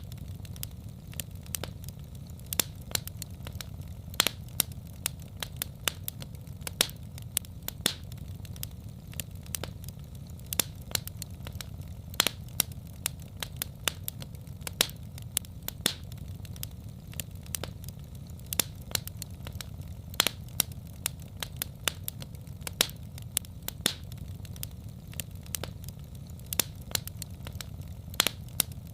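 Fireplace fire crackling: irregular sharp pops and snaps, some louder than the rest, over a steady low rumble.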